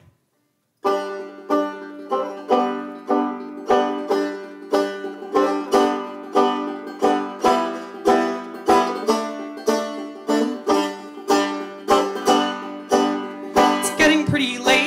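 Banjo played solo: an instrumental intro of steadily picked, ringing notes in an even rhythm, starting about a second in after a short silence.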